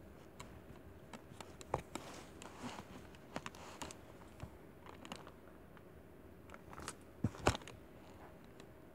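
Close handling noises of a plastic baby doll and its clothes: soft fabric rustling with scattered light clicks and taps, and louder knocks about two seconds in and again near the end.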